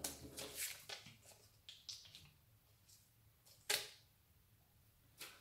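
Faint rustles and crinkles of a plastic-backed sheet of stick-on rhinestones being handled as a gem is picked off it, with one sharper crackle about four seconds in.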